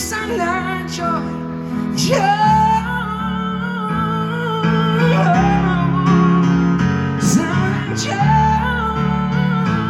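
A live pop-rock band playing, with long held, wavering sung notes over guitar and a steady bass line.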